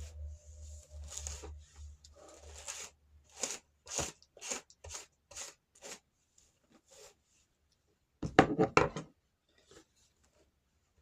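Close handling noises: a rustle over a low hum, then a run of sharp crinkling or tapping strokes about two a second, and a brief loud clatter about eight seconds in.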